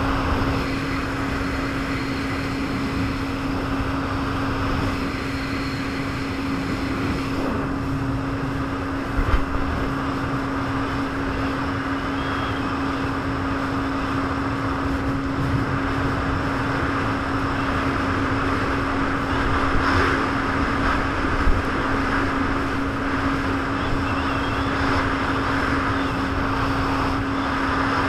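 Jet ski engine running at a steady, unchanging pitch under a constant rushing noise, with two brief thumps, one about nine seconds in and one about twenty-one seconds in.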